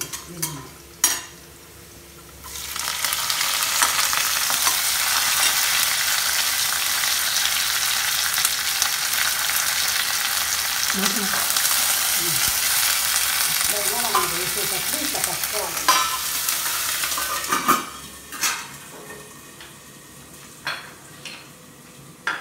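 Chopped onions and curry leaves sizzling loudly in hot oil in a steel kadai while they are stirred with a metal spatula. The sizzle starts about two and a half seconds in and dies away a few seconds before the end, leaving a few clinks of the spatula on the pan.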